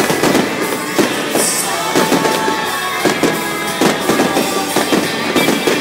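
Fireworks going off in rapid succession, sharp bangs about twice a second, over music that plays throughout.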